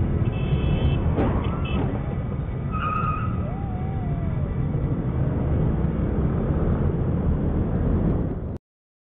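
Steady low rumble of idling motor scooters and road traffic at an intersection, with a few brief high-pitched tones about one to three seconds in. The sound cuts off abruptly near the end.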